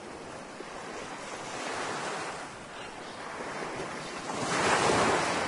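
Ocean surf washing onto a sandy beach, swelling into a louder wave near the end.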